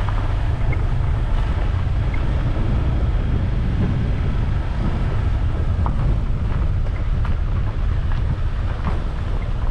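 Wind buffeting the microphone of a moving rider: a steady low rumble, with a few faint ticks in the second half.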